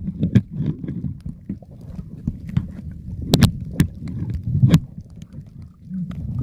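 Muffled sound recorded underwater by a snorkeler's camera: low, irregular sloshing and rumbling of water with scattered sharp clicks, a few louder ones a little past halfway.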